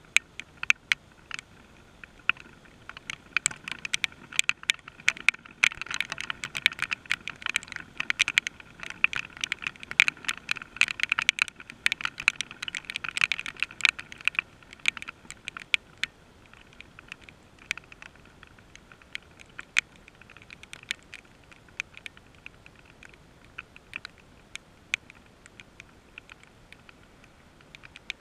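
Raindrops striking a hard surface close to the microphone as separate, irregular sharp ticks, thick and fast through the middle and thinning to scattered drops near the end.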